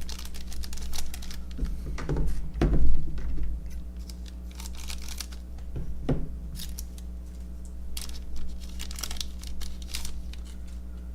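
Paper rustling of baseball cards being handled: a card pack's wrapper being torn and crinkled and cards shuffled through, in irregular rustles and clicks. A couple of dull bumps about two to three seconds in are the loudest moments.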